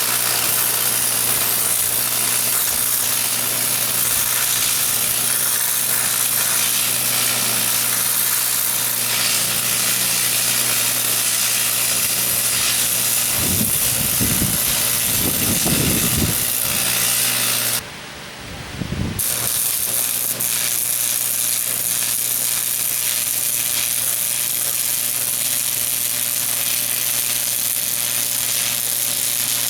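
Electric arc welding on steel: a steady crackling hiss from the arc over the welder's constant hum, with the arc stopping abruptly about 18 seconds in and striking again about a second later.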